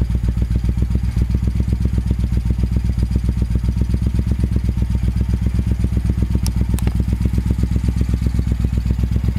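1974 Moto Guzzi Eldorado 850's transverse V-twin idling steadily through Mistral stainless slash-cut exhaust, an even, rapid exhaust pulse. The engine is freshly rebuilt, with C5 electronic ignition.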